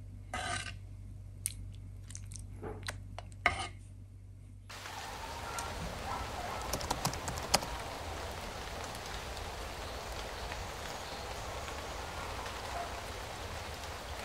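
A metal ladle stirring a pot of borscht, with several sharp clinks against the steel pot over a low hum. About five seconds in it gives way to a steady outdoor hiss of melting snow, dripping and trickling water, with a few light clicks just after the change.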